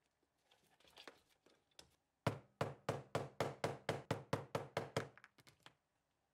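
A few light scattered taps, then a fast, even run of about fourteen sharp knocks, roughly five a second, tailing off into a few softer ones.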